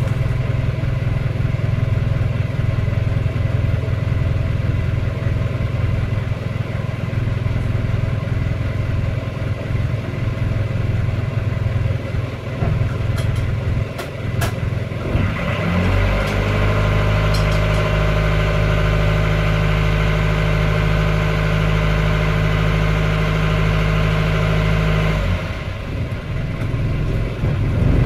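Motor cruiser's inboard diesel engine running. About sixteen seconds in its note changes to a steadier hum, then shifts again near the end, with a few clicks along the way.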